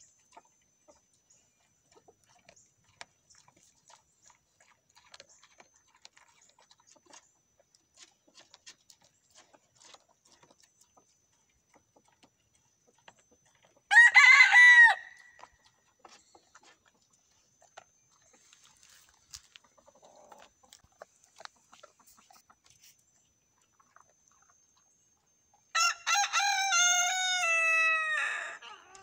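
A rooster crowing: a short, loud call about halfway through, then a full crow of about three seconds near the end. Faint scattered ticks in between.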